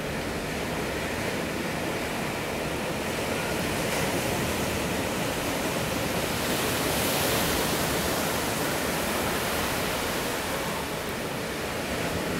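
Steady rush of ocean surf, waves breaking and washing, swelling a little about seven seconds in.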